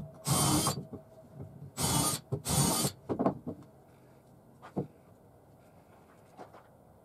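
Cordless drill pre-drilling three pilot holes into a wooden block: three short bursts of drilling, each about half a second, within the first three seconds. A few light knocks of wood blocks being handled follow.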